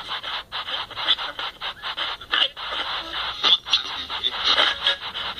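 Cosmos CT spirit box app on a phone, playing through its small speaker: a rapid stream of chopped bursts of static and sound fragments that break off every fraction of a second. The session's host reads the fragments as spirit replies such as "give it to her" and "been here a long time".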